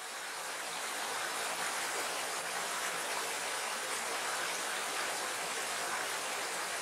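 Small stream rushing and splashing over rocks: a steady, even rush of water that fades in over the first second.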